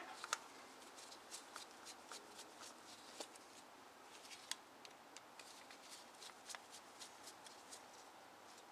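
Faint, irregular small clicks and scrapes of a screwdriver working out the little Torx screws of a Briggs & Stratton carburetor's fuel pump diaphragm plate, and of the metal carburetor being handled.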